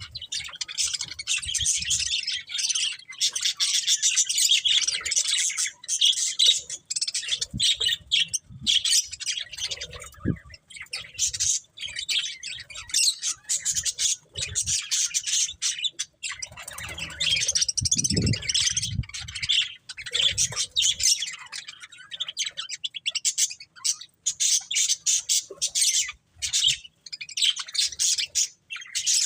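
Budgerigars chattering and chirping, a dense run of quick high chirps and squawks with short pauses, and a few low thuds about two-thirds of the way through.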